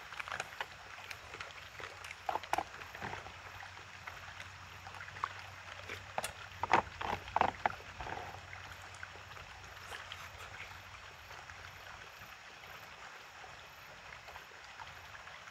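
Eating sounds: wooden chopsticks clicking and scraping against a plastic takeout container of rabokki, with a few louder clicks near the middle, over a steady outdoor hiss.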